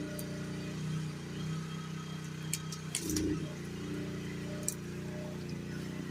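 GroundHog KH14G mini excavator running steadily while working a light duty log grapple, with sharp metal clinks a couple of times and a heavier thud about three seconds in.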